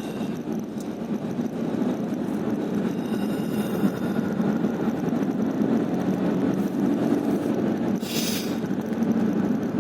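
A car being driven at low speed, with steady engine and road noise. A short hiss sounds about eight seconds in.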